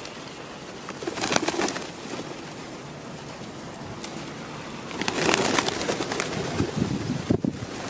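Flock of feral pigeons feeding and cooing, with louder bursts of wing flapping about a second in and again from about five seconds in.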